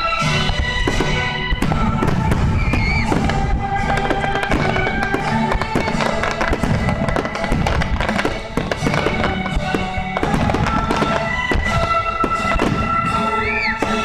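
Fireworks display: shells booming and crackling in quick succession, over steady music.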